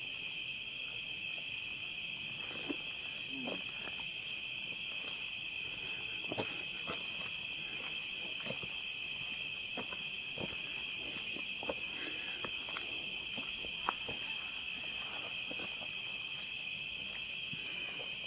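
Steady, unbroken high-pitched chorus of night insects such as crickets, with scattered faint clicks.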